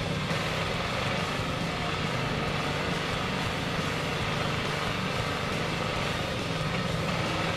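Heavy off-road truck's engine running steadily under load while it wades through deep river water, with the rush of water churned up around the cab and wheels.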